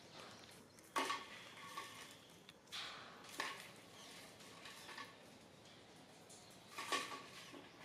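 A few sharp clattering knocks, scattered irregularly, the loudest about a second in and again near the end, with a brief ringing after some of them, over a quiet background.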